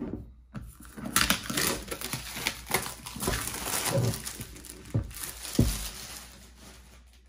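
Clear plastic shrink wrap crinkling and tearing as it is peeled off a cardboard box, with a few dull thumps in the second half.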